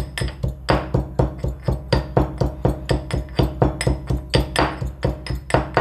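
A pestle pounding pieces of fresh ginger in a mortar, with steady strikes about three a second, each with a short ring.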